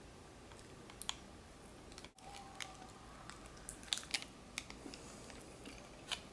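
Quiet chewing of a sugar-coated fruit paste (pâte de fruits), with scattered faint clicks.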